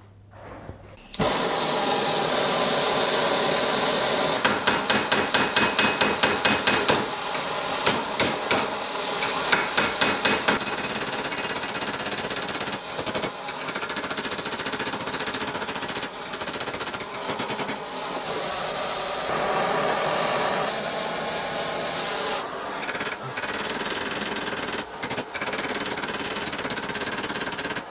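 Ball-peen hammer rapidly tapping the steel end of a sword's tang, peening it over the pommel to rivet the hilt together. A quick, continuous run of small blows, with stretches of louder separate strikes between about four and ten seconds in.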